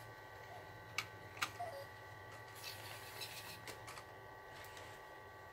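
Faint steady electronic hum in a quiet room, with two soft clicks about a second in, half a second apart.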